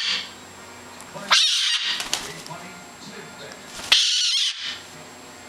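Goffin's cockatoo screeching in an agitated fit: two loud, high-pitched screams, one about a second and a half in and one about four seconds in, with the tail of another at the very start.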